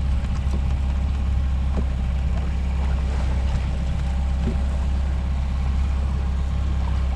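Fishing boat's engine running steadily: a low, even rumble with no change in level.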